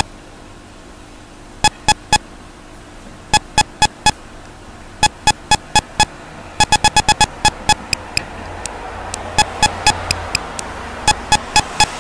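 1-bit chiptune background music of short, bleeping notes, sparse at first and then coming in quicker runs from about halfway through.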